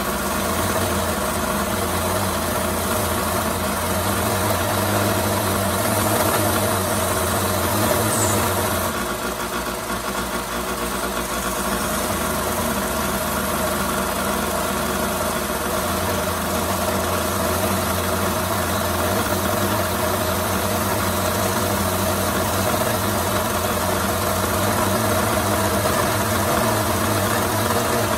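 Belt sander running steadily, its abrasive belt grinding down a plastic toy figure held against it.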